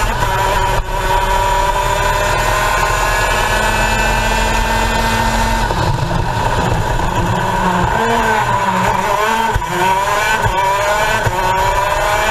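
Two-stroke racing kart engine from onboard, its pitch climbing slowly as it pulls down a straight. About eight seconds in the pitch drops as the driver lifts for a corner, then climbs again on the way out.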